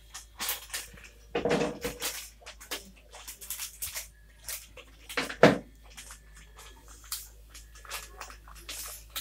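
Kitchen handling noises: short rustles and clicks of a plastic food packet being picked up, opened and tipped over a frying pan, with two louder knocks about one and a half and five and a half seconds in.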